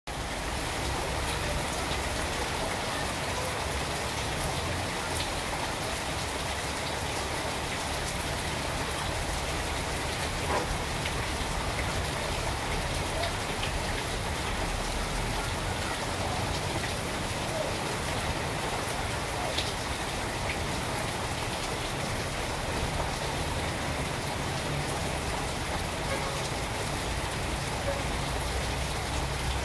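Steady rain falling on garden trees and foliage, an even hiss with a few single louder drops now and then.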